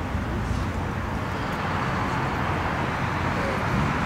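Steady rumble of traffic and car engines, an even noise with no distinct events.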